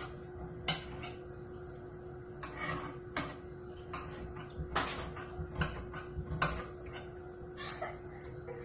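Raw shrimp being cleaned by hand under a thin trickle of tap water at a sink, with irregular small clicks and knocks against the sink and plastic tray. A steady faint hum runs underneath.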